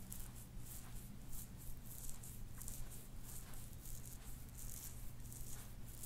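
Fingertips rubbing and scratching through hair against the scalp in a scalp massage: soft, crisp rustling strokes repeating a few times a second, over a faint steady low hum.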